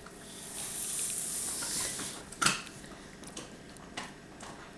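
Metal spoon scraping and clinking in a yogurt container as a spoonful is scooped: a soft scraping hiss for about two seconds, then one sharp clink about two and a half seconds in.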